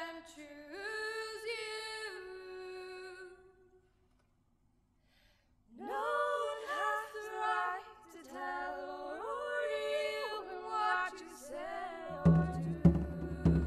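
Mixed school choir singing a cappella, breaking off for about two seconds partway and then taking up the song again. Near the end a steady drum beat comes in under the voices.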